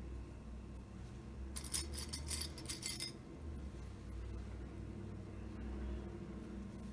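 Fabric clips clicking and clinking as they are handled and clamped onto a folded fabric strip: a quick cluster of small clicks lasting about a second and a half, over a low steady hum.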